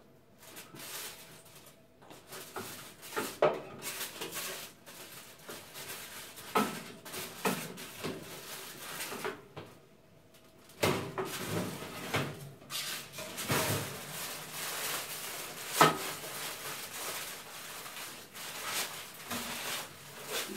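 Irregular knocks, clatter and rustling as a foil-wrapped ham is handled at an open oven with oven mitts: the oven rack and dish knocking and the aluminium foil crinkling, the sharpest knocks about a third and three quarters of the way through.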